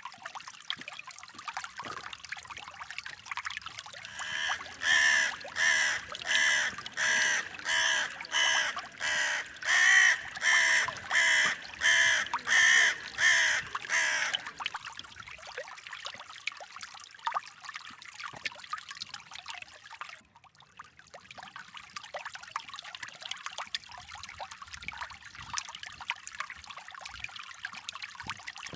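A bird calls about fifteen times in a steady run, roughly one and a half calls a second, for about ten seconds, loud over the continuous trickle and babble of a flowing creek.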